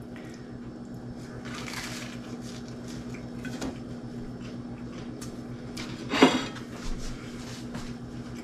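Biting into and chewing a sandwich of toasted bread, with a short crackly crunch about two seconds in and faint chewing after it. A steady low electrical hum runs underneath, and there is a brief louder sound about six seconds in.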